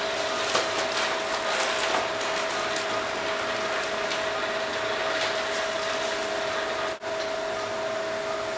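Operating-room equipment running: a steady hiss under a constant two-note hum, with a few light clicks in the first couple of seconds. The sound cuts out for a moment about seven seconds in.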